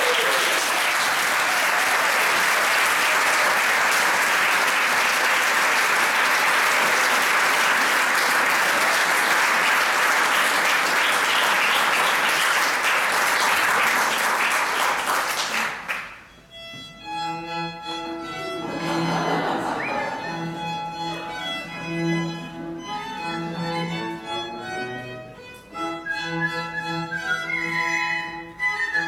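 Audience applause for about the first half, ending abruptly. After a short lull, a small string ensemble of violins and cello starts playing held, sustained notes.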